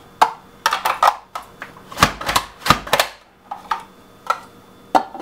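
Pampered Chef slicer clacking as a lemon is pushed through it: a run of sharp, irregular plastic clicks and knocks, about a dozen strokes.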